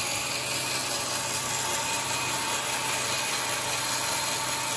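Sawmill circular saw running steadily, its blade cutting a thick teak slab as it is fed along the table.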